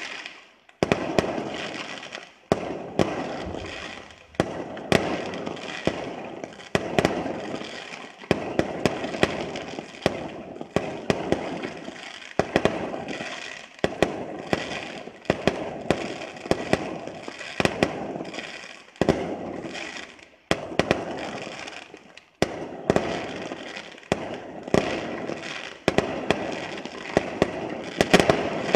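Aerial fireworks bursting one after another, a loud bang every second and a half to two seconds. Each bang trails off in crackling and a fading rumble.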